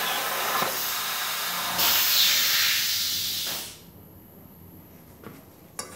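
Hypertherm Powermax 30 XP plasma cutter cutting sheet metal: a loud, steady hiss of the arc and air. It grows louder near two seconds in, then cuts off abruptly about three and a half seconds in as the cut ends.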